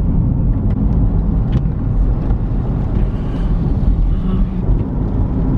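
A car driving along, heard from inside the cabin: a steady low rumble of road and engine noise.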